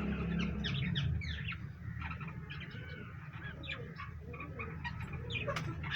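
Pet birds, parrots such as cockatiels and parakeets, chirping and calling in quick, overlapping short notes over a low steady hum.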